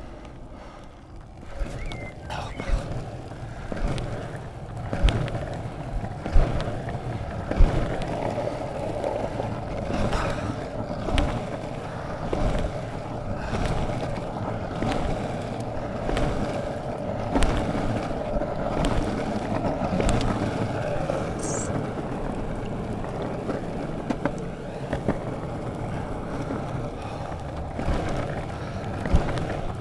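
Longboard wheels rolling over a rough tarmac path: a steady rumble, louder from about two seconds in, with scattered clicks and knocks as the wheels cross cracks and bumps.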